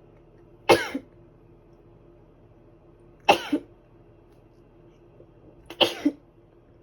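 A woman with a cold forcing out three short, sharp expulsions of breath about two and a half seconds apart, each with a smaller second burst right after it.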